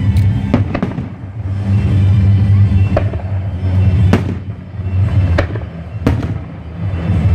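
Aerial firework shells bursting with sharp bangs, about eight at irregular intervals, the loudest about four seconds in, over steady loud music.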